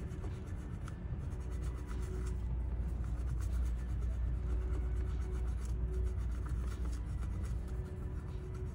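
Alcohol-soaked cotton swab scrubbing old, hardened factory thermal paste off a chip on a circuit board: a continuous scratchy rubbing of quick back-and-forth strokes, over a steady low hum.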